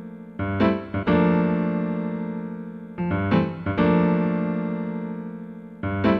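Piano music: chords struck in short groups of two or three about every three seconds, each left to ring and slowly fade.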